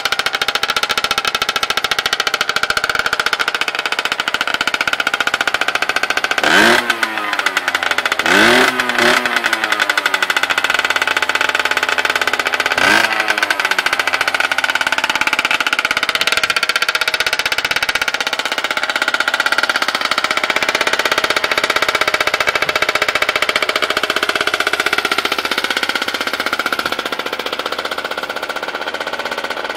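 Derbi Senda 50cc two-stroke single-cylinder engine idling through a Giannelli Conti dual-pipe exhaust, blipped up to a quick rev three times, about seven, eight and a half and thirteen seconds in.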